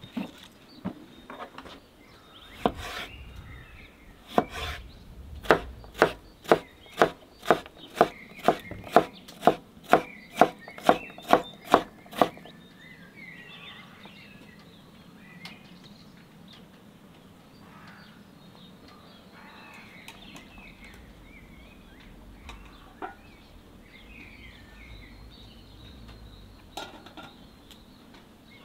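Knife chopping cucumbers on a wooden board, a steady run of sharp chops at about two a second that stops abruptly. After it, birds chirp faintly in the background with a few scattered knocks.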